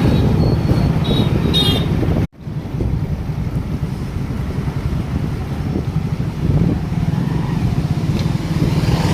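Road vehicle engines running with wind noise on the microphone, a steady low rumble, with a few short high tones in the first two seconds. The sound cuts out for an instant a little over two seconds in, then the rumble resumes.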